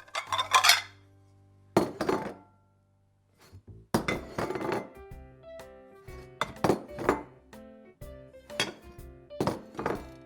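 Kitchen clatter of dishes and pots: clusters of clinks and knocks, a sharp strike every second or so, with a brief quiet gap about three seconds in.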